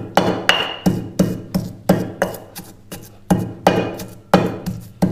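Marble pestle pounding dried pomegranate seeds (anardana) in a marble mortar: sharp stone-on-stone strikes at about three a second, some with a brief ring. The seeds are being crushed fine so that no coarse grain is left.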